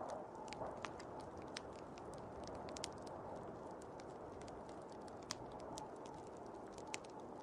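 Wood fire crackling, with sharp irregular pops, over a steady rushing blizzard wind.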